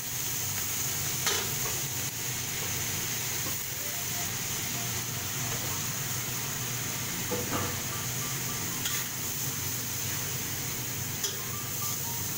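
Shredded daikon radish and dried shrimp sizzling in a steel wok while a metal spatula stirs and scrapes through them. A few sharp clinks of the spatula stand out against the steady sizzle.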